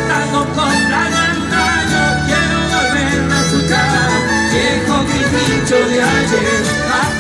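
Live folk music: violins play with vibrato over a steady band accompaniment, with a male voice singing.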